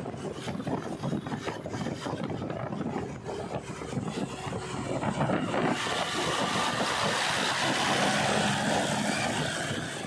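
Sonalika DI 42 RX tractor's diesel engine running as the tractor drives past hauling a loaded trailer, getting louder about six seconds in as it comes alongside.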